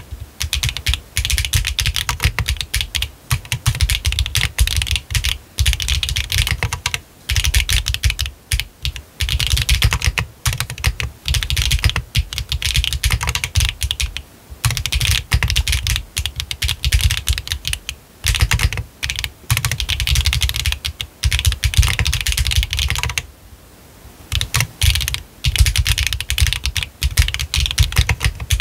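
Fast, continuous typing on a Techbear TB8 mechanical keyboard with HMX 幻紫軸 switches, a 1.6 mm PCB, no foam and a beans gasket mount. There is a brief pause about two-thirds of the way through.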